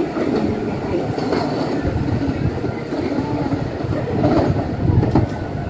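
Electric train pulling away along the line, a continuous rumble with wheels clattering over the rail joints.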